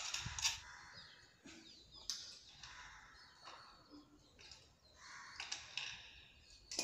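Faint clicks and rustles of a wire being twisted by hand onto a metal rod, with scattered short handling knocks; a few bird chirps in the background.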